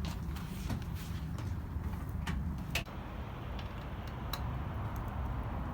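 Scattered sharp clicks and taps of hand tools working on BMX bike parts during a teardown, the loudest nearly three seconds in, over a steady low rumble.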